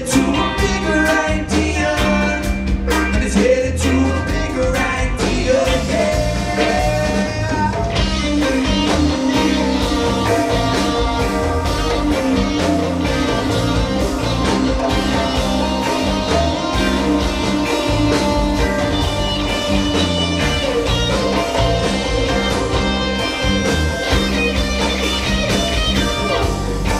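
A live rock band playing: electric guitars over bass and drums, with a singing voice in the first several seconds, then held electric guitar notes.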